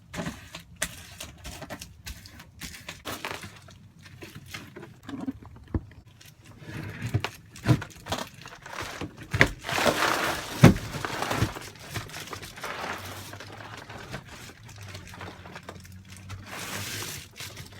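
Crinkling and rustling of Reflectix foil insulation and foil tape being handled, with many sharp taps and knocks. The handling gets busier about halfway through.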